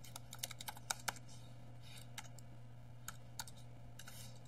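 Computer keyboard keys tapped in short irregular runs as a word is typed, with a quick cluster of keystrokes in the first second and scattered single ones after. A faint steady low hum runs underneath.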